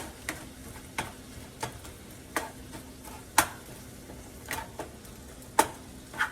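Italian sausage sizzling as it browns in a frying pan, with a utensil knocking and scraping against the pan at uneven intervals as the meat is stirred; the loudest knocks come about three and a half and five and a half seconds in.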